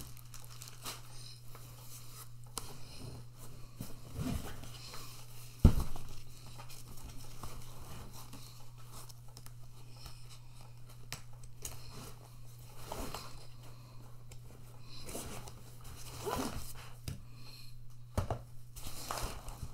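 Plastic packaging bag crinkling and rustling and fabric-covered panels shuffling as a folded collapsible trunk organizer is handled and opened out, with one sharp thump about six seconds in, over a steady low hum.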